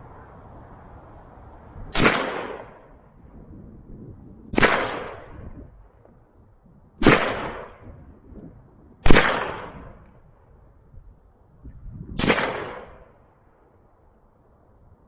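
Five single gunshots a few seconds apart, each followed by a short echo dying away.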